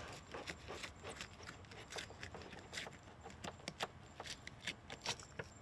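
Fillet knife cutting a large African pompano's fillet away from its rib cage: a string of irregular short clicks and scrapes as the blade works over the rib bones.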